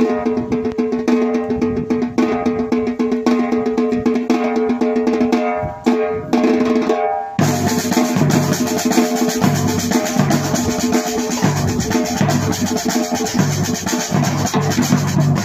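Music with a drum beat; about seven seconds in it changes to a fuller section with a repeating bass line.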